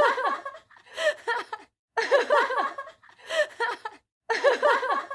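A person laughing in high-pitched bursts of giggles, broken by short silent gaps. The same pair of laughs repeats about every two and a quarter seconds, like a looped recording.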